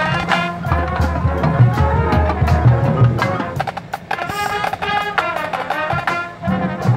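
Marching band playing its field show: a percussion-heavy passage of struck pitched notes and drums over low bass notes, dipping briefly in loudness about four seconds in.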